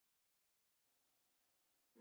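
Silence: a digital gap between music tracks.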